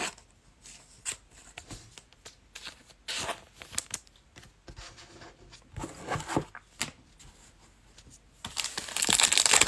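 Football trading cards being handled, with scattered short slides and taps. Near the end, the crinkling of a foil card-pack wrapper as the next pack is picked up and torn open.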